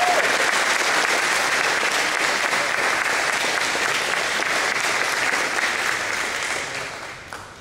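Audience applauding: many hands clapping in a steady patter that dies away near the end.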